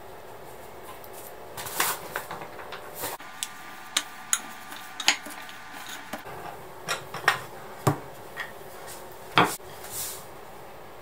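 Kitchen utensils and dishes being handled during baking: an irregular string of clinks, taps and knocks, loudest twice, about halfway through and near the end.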